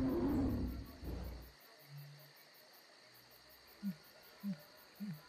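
End-screen sound effects: a loud low rumbling burst for about a second and a half, then short low notes that slide in pitch, repeating about twice a second near the end.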